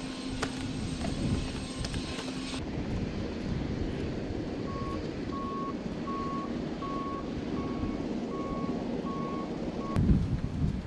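Steady low engine rumble with a repeating electronic beep, about eight short beeps evenly spaced, starting about five seconds in; a low thump near the end. Before that, a steady hum with sharp clicks.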